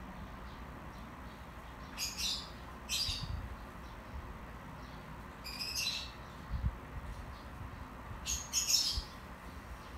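High chirps in four short bursts a second or more apart, like a small bird calling, with a few faint low thuds in between.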